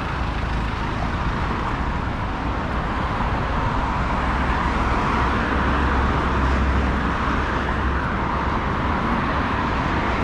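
Steady vehicle and road noise: a constant low rumble under an even hiss.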